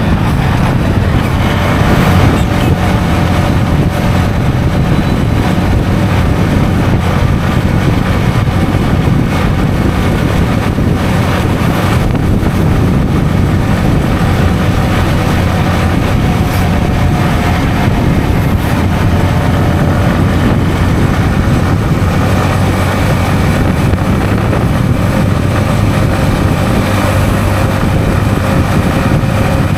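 Yamaha XSR155's single-cylinder four-stroke engine running at a steady cruise, with wind rushing over the microphone.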